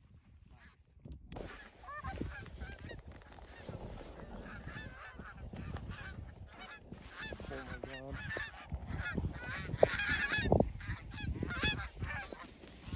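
A flock of geese honking, many short overlapping calls that grow busier and louder in the second half.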